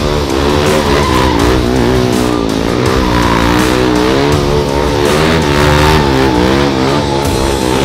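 KTM 250 Duke's single-cylinder engine, fitted with an Akrapovič full-system exhaust, revving hard and rising and falling continuously as the bike is spun in tight circles. The rear tyre squeals and skids on the asphalt.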